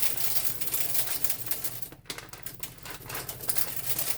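Dry split green peas poured into a metal feed bin, rattling as a dense patter of many small hard clicks, with a brief break about two seconds in.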